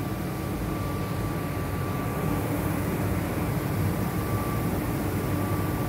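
Steady low rumble and hum, with a thin steady whine above it.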